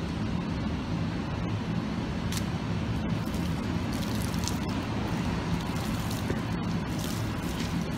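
Steady low background rumble of urban traffic, with a few short splashes of water poured from a plastic bucket onto bare feet and paving stones.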